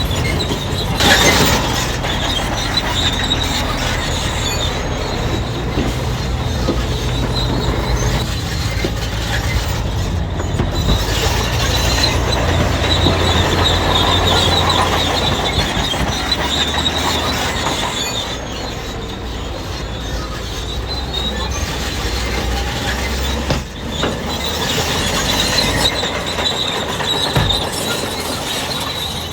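Crawler bulldozer working: its diesel engine runs steadily under load while its steel tracks give a continuous high squeal. There is a louder clank about a second in.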